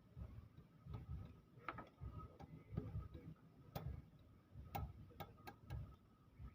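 Faint, irregular metallic clicks and light taps, more frequent in the second half, over low muffled bumps: hand tools and parts being handled while fuel injectors are swapped on an engine.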